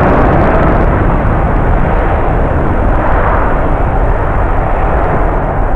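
Jet airliner engines running loud and steady, mixed with strong wind buffeting the microphone.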